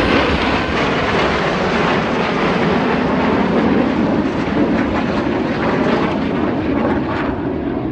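Red Arrows' BAE Hawk T1 jets flying past in formation: a loud, steady jet noise whose pitch slowly falls as they pass.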